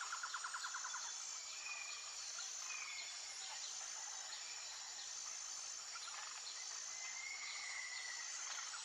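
Natural outdoor ambience: a steady high insect drone, with a rapid pulsed trill in the first second or so and a few short bird whistles, one near the middle and a longer one near the end.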